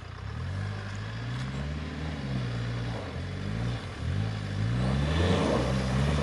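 Hyundai Terracan SUV engine revving up and down under load as it climbs a steep, rutted dirt slope, growing louder as it comes closer. The revs dip briefly about three and four seconds in.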